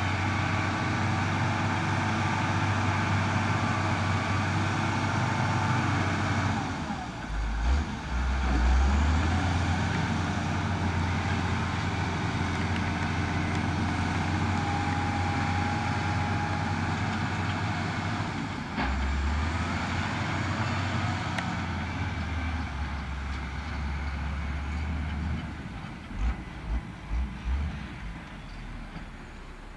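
Galion 850 motor grader's diesel engine running as the machine drives across the yard, its note shifting a couple of times. A few low thumps near the end.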